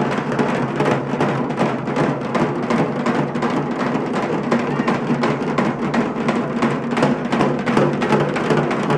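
Fast, steady drumming on large double-headed barrel drums, played loud and without a break to accompany karagam dancers at a fire-walk.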